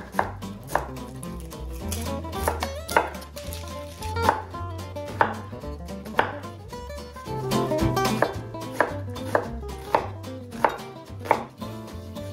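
Kitchen knife cutting through an onion onto a wooden cutting board, each stroke ending in a sharp knock on the board. The strokes come a second or more apart at first, then settle into a steady chop about twice a second near the end as the onion is diced coarsely.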